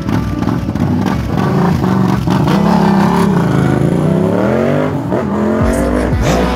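Motorcycle engine revving, its pitch dipping and then climbing over a couple of seconds. Deep bass music comes in near the end.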